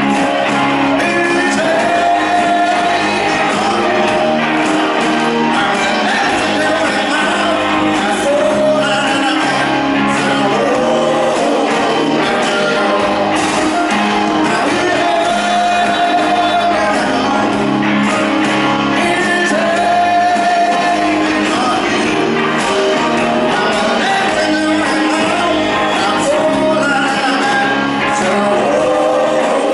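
A live rock band playing: a male lead vocal sings over electric guitars and drums.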